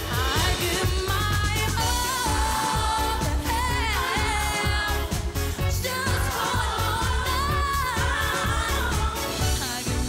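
Pop song with a sung lead vocal over a steady beat and heavy bass.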